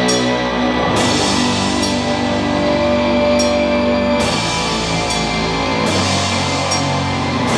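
Doom metal band playing live: heavily distorted guitar and bass chords held for seconds at a time, with cymbal crashes about once a second.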